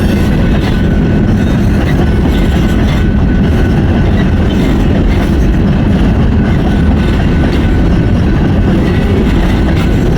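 Norfolk Southern freight train cars rolling past close by: a loud, steady rumble of wheels on rail with clickety-clack.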